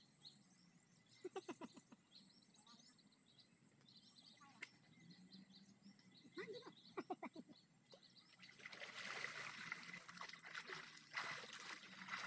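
Faint outdoor ambience by the water, with small bird chirps and a few brief clusters of clicks. About two-thirds in, a louder hiss like trickling or rustling sets in.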